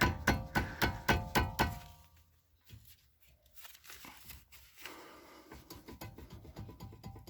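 Background music with a fast, steady percussive beat that stops about two seconds in, then a near-quiet gap with a few faint knocks, and softer music coming back in near the end.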